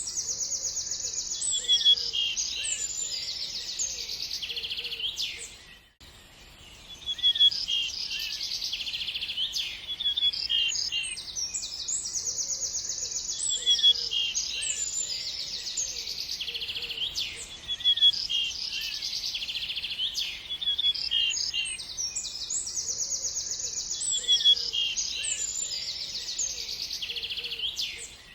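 Recorded birdsong: small birds chirping and singing rapid high-pitched trills. The same passage repeats about every twelve seconds, with a brief drop-out about six seconds in.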